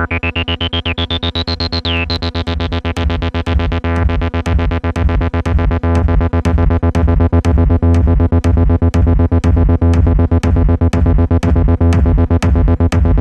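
Live acid techno at 120 BPM played on synthesizers and a drum machine. A synth line glides upward in pitch over the first two seconds, then gives way to fast repeating synth pulses over a steady bass, with a sharp percussive hit about twice a second. The track gets louder about four seconds in.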